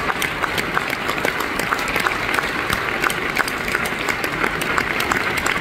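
A large theatre audience applauding steadily, many hands clapping at once.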